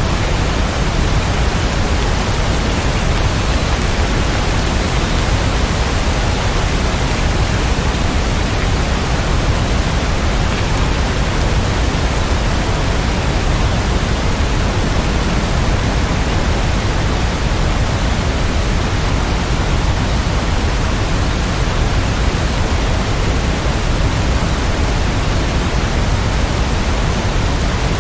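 Rain falling as a steady, even hiss.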